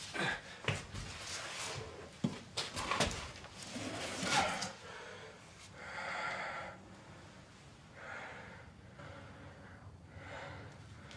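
A person breathing heavily, with long noisy breaths about every two seconds in the second half, after several sharp knocks and scuffs in the first three seconds.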